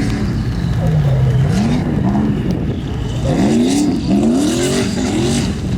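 Off-road race car's engine revving up and down in quick, repeated throttle bursts, the pitch rising and falling several times, fastest in the second half.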